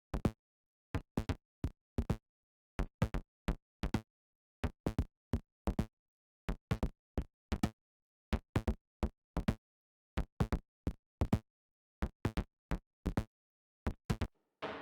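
Synthesized percussion from a Surge software synthesizer patch: short, dry knock-like hits looping in a repeating rhythmic pattern, a few per second, with dead silence between them. Right at the end a fuller, ringing drum-like hit begins.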